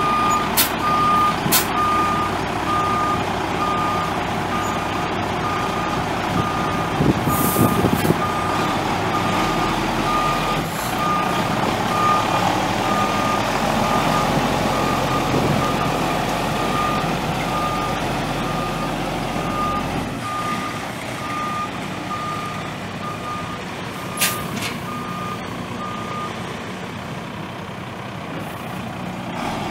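Truck backup alarm beeping at an even pace, about one beep a second, over the International DT466 turbo diesel of a 1992 International 4900 dump truck running as it reverses. The beeping stops near the end while the engine keeps running.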